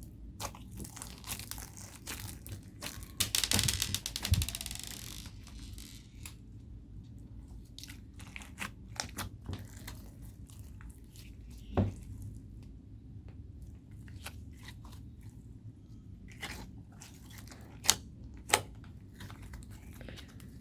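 Homemade slime being squished and kneaded by hand, giving wet crackling clicks and pops as trapped air bubbles burst. About three seconds in there is a dense run of rapid crackling, and near the end two sharp, louder pops.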